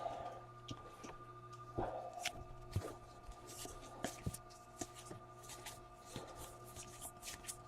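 Trading cards being handled and flipped through: faint soft clicks and rustles of card stock sliding against card stock, over a steady low hum.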